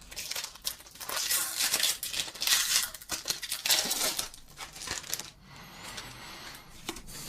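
Foil Pokémon booster pack wrapper being torn open and crinkled, a run of crackling rustles that eases to softer handling about five seconds in.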